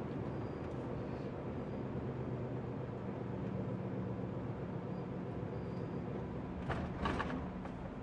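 MAN TGX lorry's diesel engine and road noise heard from inside the cab while driving: a steady drone whose engine note moves a little higher about three seconds in. A short loud clatter comes near the end.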